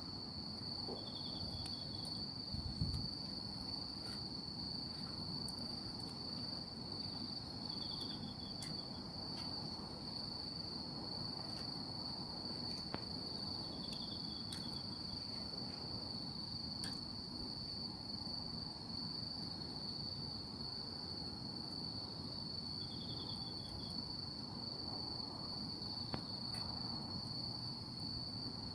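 Night insects calling: a steady, unbroken high-pitched chirring with a second insect giving a short pulsed trill about every six seconds. Faint sharp ticks from the burning charcoal sound now and then, and there is a low thump about three seconds in.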